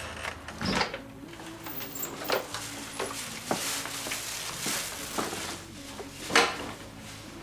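A house door and storm door being handled as someone walks in: a series of knocks and clicks from the door, latch and footsteps, the loudest knock about six and a half seconds in, over a low steady hum.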